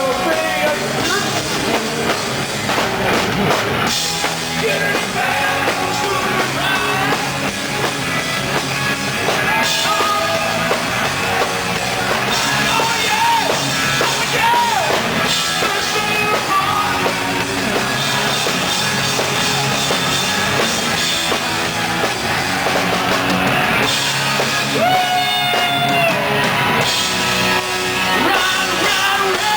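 Hard rock band playing: drum kit, electric guitar and singing, loud and continuous.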